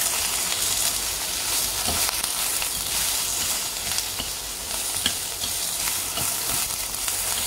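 Onions, garlic, ginger and green onion heads sizzling in a little oil in a pot as they are stir-fried until fragrant, stirred with chopsticks. A few clicks can be heard over the steady sizzle.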